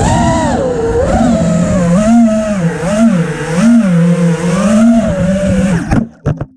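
Brushless motors of an FPV freestyle quadcopter whining, the pitch rising and falling over and over with the throttle. About six seconds in the sound cuts off suddenly, with a couple of short blips.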